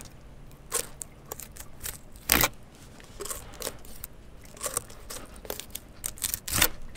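8-inch Dexter wide fillet knife slicing a red snapper fillet off along the backbone and over the rib cage: irregular crunching and scraping as the blade works through flesh and bone. Two louder crunches come about two and a half seconds in and near the end.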